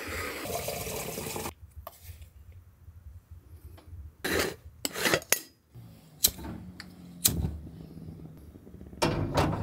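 Metal stovetop moka pot being unscrewed and filled. A rubbing, scraping sound of the threads comes first, then a spoon scrapes and taps ground coffee into the filter basket, with several sharp metal clinks.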